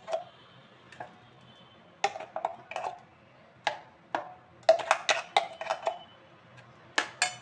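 A metal spoon knocks and scrapes against a stainless steel mixer jar and bowl while batter is scooped out. It makes short clinks and knocks that come in irregular clusters, thickest about five seconds in.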